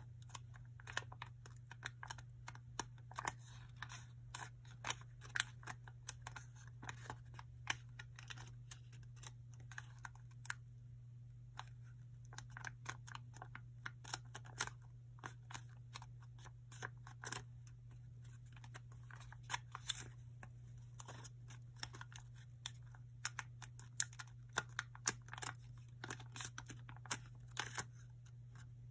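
Small square of origami paper crinkling and crackling in the hands as its corners are folded in to the centre and the creases pressed down, with irregular sharp clicks several times a second. A steady low hum runs underneath.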